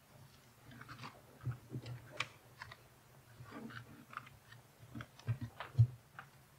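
Papers being handled and gathered up on a wooden lectern close to the podium microphone: faint scattered rustles and small taps, busier and louder near the end, with one sharper knock.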